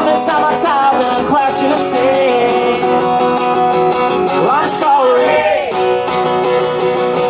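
Acoustic guitar strummed live through a PA, with a man's voice singing over it at times.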